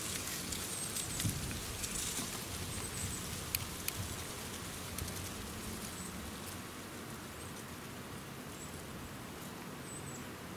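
Light crackling and rustling in dry leaf litter, with scattered sharp ticks mostly in the first half, and a few faint high bird chirps.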